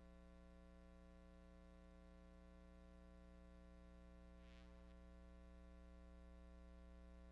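Near silence with a steady low electrical hum and its overtones; a faint brief hiss about four and a half seconds in.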